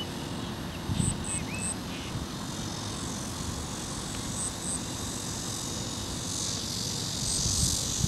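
Outdoor ambience: a steady low rumble with short, very high chirps in twos and threes, about a second in, around the middle and near the end.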